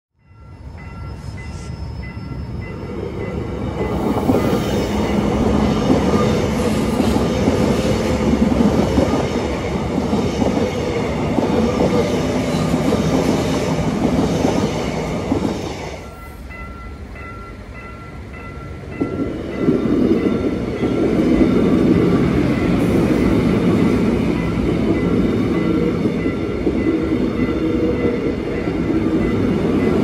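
Korail electric commuter train rolling through a level crossing, with the crossing warning bell dinging over and over. The sound drops away sharply about halfway through, and a second train pass builds up a few seconds later.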